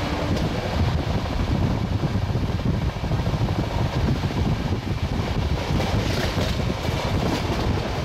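Wind rushing against the microphone at the open door of a fast-running express train, over the steady rumble of its LHB coaches running on the rails at speed.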